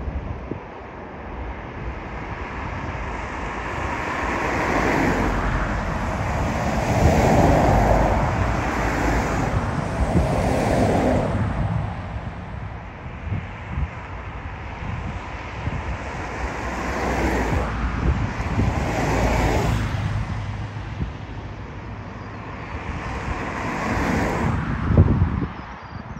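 Gusty wind buffeting the microphone, swelling and easing every few seconds over a low jet-engine rumble from the runway, with a sharp bump near the end.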